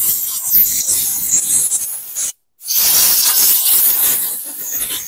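Compressed-air blow gun blasting air over a small mower engine's cooling fins to blow out dirt, a loud, steady hiss. It cuts out for about half a second a little past halfway, then starts again.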